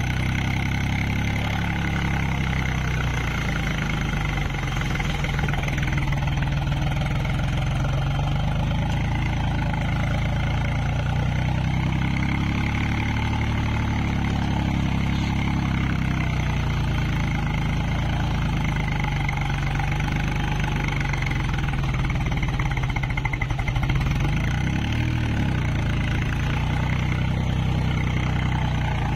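Swaraj 735 FE tractor's three-cylinder diesel engine running steadily under load while the tractor drives through a flooded, muddy paddy field on half cage wheels, heard from the driver's seat.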